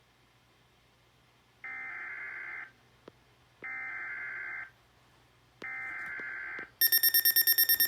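Weatheradio Canada SAME digital alert header: three one-second bursts of buzzy data warble, about a second apart. Near the end a much louder, harsh alert tone begins, pulsing about ten times a second.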